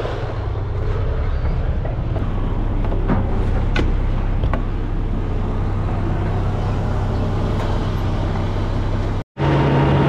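Tractor-trailer's diesel engine running with a steady low hum. A few sharp clicks sound about three to four and a half seconds in, and the sound cuts out for an instant near the end.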